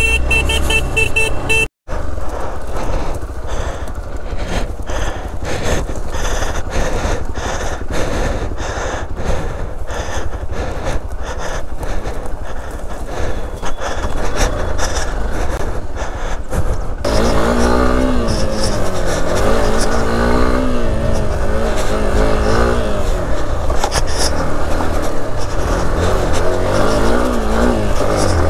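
Motorcycle ridden over a rough off-road track, its engine running under a heavy low rumble with many short knocks and rattles. From about two-thirds through, the engine note rises and falls repeatedly as the throttle is opened and closed.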